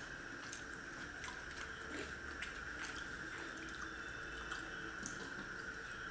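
Small clicks and wet sounds of eating by hand at a table, with a plastic water bottle being handled and drunk from near the end, over a steady background hum.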